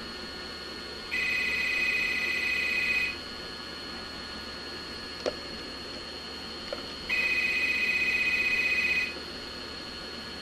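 Desk telephone's electronic ringer warbling in two rings, each about two seconds long, with a four-second pause between them. A short click comes about five seconds in.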